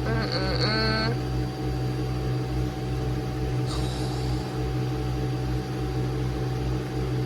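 Nespresso Vertuo Pop+ capsule coffee machine brewing, its pump and capsule-spinning motor giving a steady hum, alongside an Aeroccino milk frother running.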